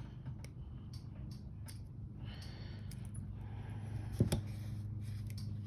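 Breathing close to the microphone, with a few small clicks and taps from handling beads and jewelry findings, over a low steady hum. A sharper tap comes about four seconds in.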